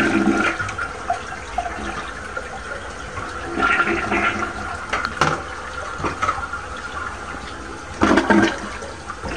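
Crane toilet flushing: water rushing and swirling down the bowl and running on steadily, with two louder surges about four and eight seconds in.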